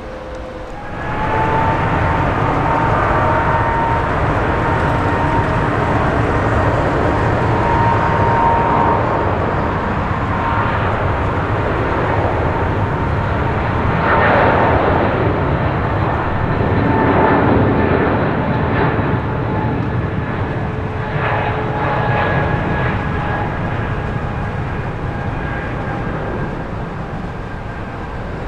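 Boeing 777-200ER's twin jet engines running at close range: a steady rush with a high fan whine that comes in sharply about a second in, is loudest around the middle, and eases off near the end.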